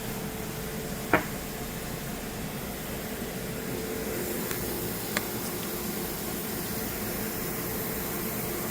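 Steady mechanical hum of fans or air-handling equipment, with a light click about a second in and another about five seconds in.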